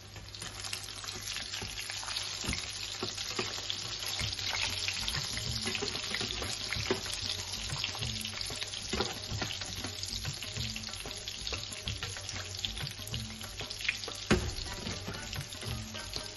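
Shami kebab patties, coated in flour and egg, shallow-frying in hot oil: a steady sizzle full of fine crackles. A single louder knock comes near the end.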